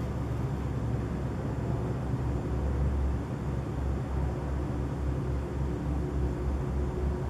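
An unexplained low rumble heard at night, the 'strange noise' being recorded. About two seconds in it begins to throb a few times a second, with a faint steady hum above it.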